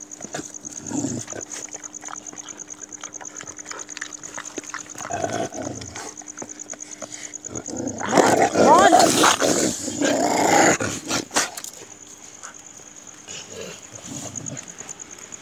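Dogs growling close by, with a loud outburst lasting about three seconds just past the middle. A steady pulsing chirp of crickets runs underneath.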